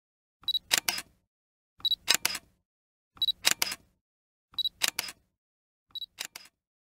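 Digital SLR camera taking five shots in turn: each a short high focus-confirmation beep followed by the quick clicks of the mirror and shutter, about one shot every second and a half, the last a little quieter.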